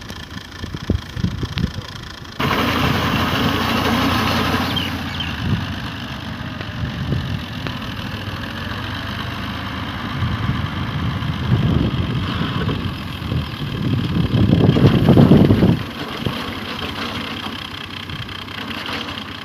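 Engine of a wheat-harvesting machine running steadily. It jumps suddenly louder a couple of seconds in and swells louder again about three-quarters of the way through.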